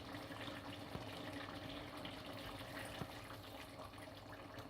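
Faint, steady running water while water is being added for the tinda to cook in, with a few light clicks.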